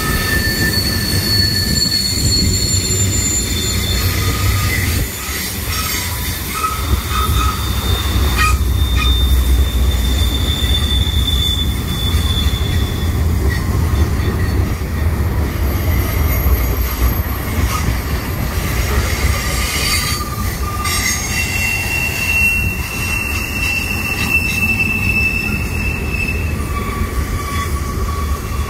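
Freight cars of a long manifest train rolling through a tight curve: wheel flanges squealing against the rail in long, high, steady whistles that shift in pitch and overlap, over a steady low rumble of the wheels, with a few sharp clanks.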